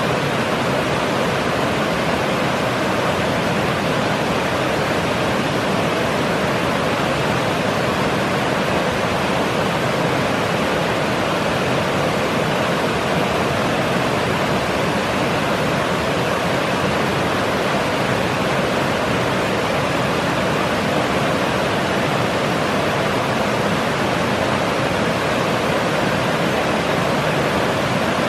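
Small mountain creek cascading over stepped rock ledges: a steady, loud rush of white water.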